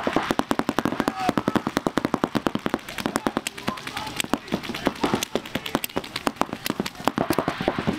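Several paintball markers firing in dense, overlapping strings of rapid shots, many a second.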